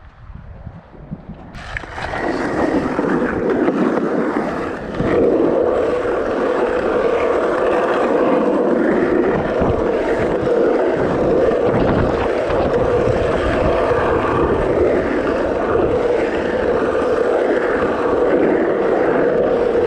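Skateboard wheels rolling on a paved pump track: a steady, loud rumble that sets in about two seconds in and grows louder a few seconds later.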